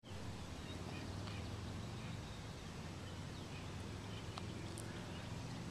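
Faint outdoor ambience: a steady low rumble with a few faint bird chirps.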